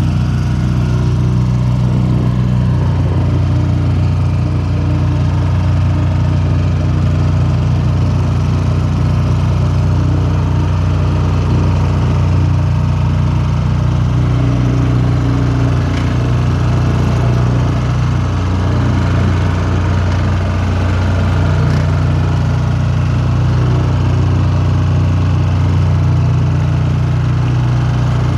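Wacker Neuson DPU reversible vibratory plate compactor running steadily, its diesel engine driving the vibrating plate as it compacts soil in a trench.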